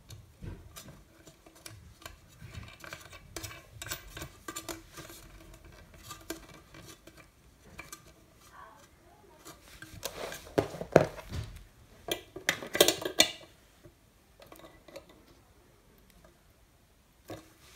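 Small clicks, taps and scrapes as a panel-mount fuse holder and its wire are worked into a hole in a transformer's sheet-metal case, with a louder run of knocks and clatter about ten to thirteen seconds in.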